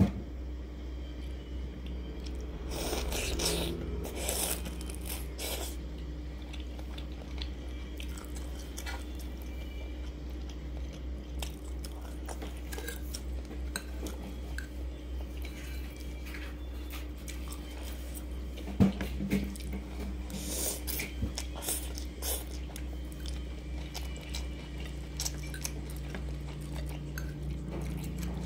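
Close-up eating sounds: chewing of prawn and spicy instant noodles, with a fork clicking and scraping against the ceramic bowl, including a sharp click about 19 seconds in. A steady low hum runs underneath.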